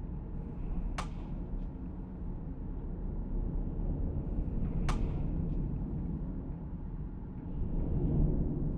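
Two sharp rifle shots about four seconds apart, each with a short ring-out and a fainter crack about half a second later, over a steady low outdoor rumble.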